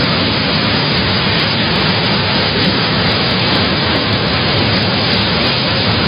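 Loud, steady rush of strong storm wind and heavy rain.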